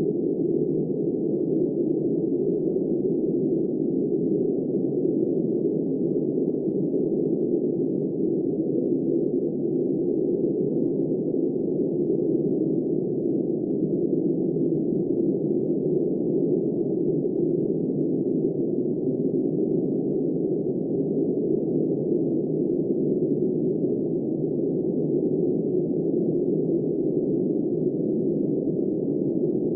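Steady, muffled rushing of snowstorm wind, dull and low with no high hiss, holding an even level throughout.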